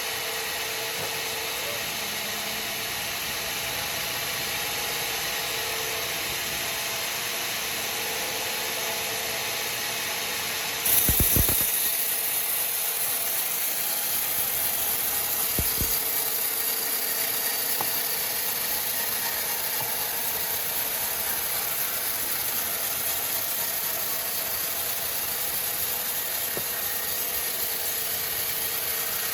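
Sawmill machinery running steadily. About eleven seconds in, a hissing sound gets louder, with a low thump, and another thump a few seconds later.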